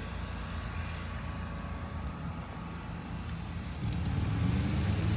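A steady low engine hum that grows louder near the end.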